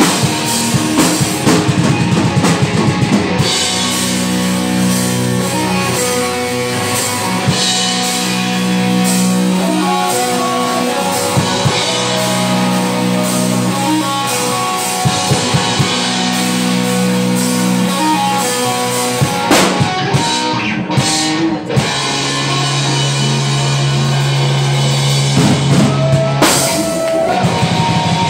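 Live rock band playing: electric guitar, electric bass and a drum kit. A little past two-thirds through, the cymbals drop out for a short break of a few separate accented hits. Then the bass comes back in on a long low note.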